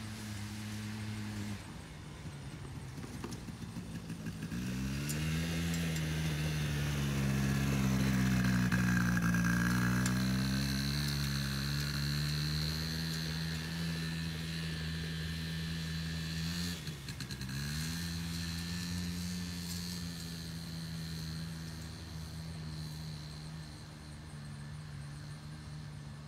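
Four-wheeler (ATV) engine running as it is ridden across the yard. It revs up about four seconds in and is loudest near the middle as it comes closer. About two-thirds of the way through the engine drops briefly and picks up again, then fades as the ATV moves away.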